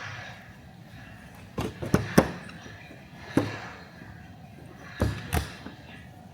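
About six sharp knocks and taps, like things being handled and set down on a study desk. The loudest comes about two seconds in, and a close pair follows near the end.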